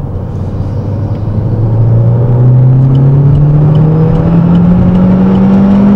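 The 2011 MG6's 1.8 turbo petrol engine, running a tuning box and a straight-through exhaust, accelerating under load as heard from inside the cabin. Its revs climb steadily and the note gets louder over the first couple of seconds.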